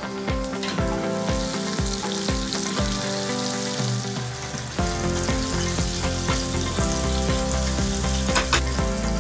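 Coated chicken thigh shallow-frying in oil in a nonstick skillet: a steady sizzle and crackle, with a few sharper pops near the end. Background music with a beat plays throughout.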